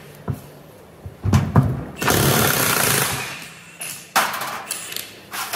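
Impact wrench hammering for about a second, spinning the yoke nut off the transfer case's output shaft, then a second short burst about two seconds later. A few knocks of the case being handled come before it.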